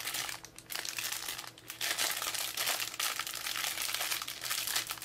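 Clear plastic packaging bag crinkling continuously as hands fumble with it, trying to get it open, easing off briefly twice in the first two seconds.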